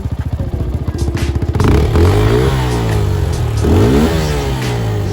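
RKS motorcycle engine running: a fast, even putter for the first second and a half, then revving up and falling back several times.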